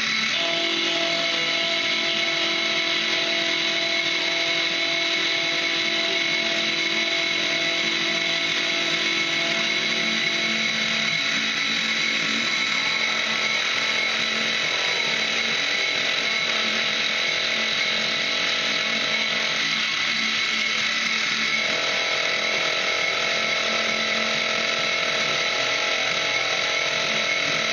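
Milling machine running with its cutter milling metal knife bolsters, a steady machine whine with several held tones over cutting noise. Some of the tones drop out briefly about twenty seconds in and then return.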